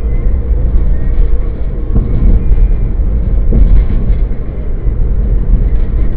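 Car cabin noise picked up by a dashboard camera's microphone: a loud, steady low rumble of engine and tyres on the road as the car drives.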